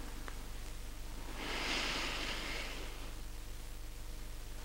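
One long, soft breath in through the nose, lasting about a second, as in yogic breathing during a slow arm raise. It sounds over a low, steady room hum.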